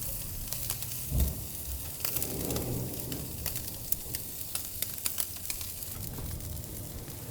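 Hanwoo beef sizzling on a charcoal grill, with many small sharp pops and crackles through the sizzle. A dull knock about a second in.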